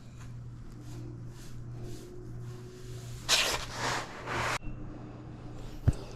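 Wiping strokes on ceramic tile during grout cleanup: a burst of scrubbing about three seconds in that stops abruptly, over a steady low hum, with one short thump near the end.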